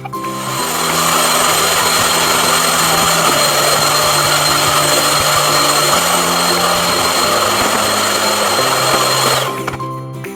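Vacuum cleaner running steadily with a high whine, switched on at the start and cut off near the end, over background music.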